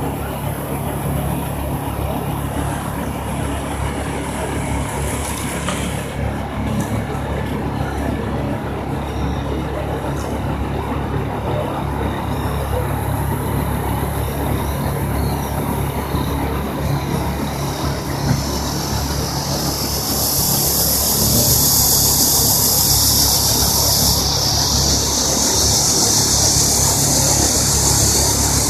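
Steady engine and road noise from cars, with a low hum throughout. A high hiss grows louder about two-thirds of the way in.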